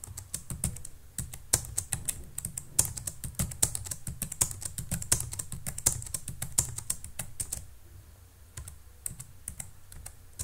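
Computer keyboard keystrokes: rapid, irregular key presses for about seven and a half seconds, thinning to a few scattered presses near the end.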